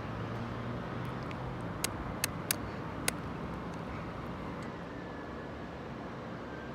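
Steady distant vehicle noise with a low hum through the first couple of seconds, and four sharp clicks about two to three seconds in.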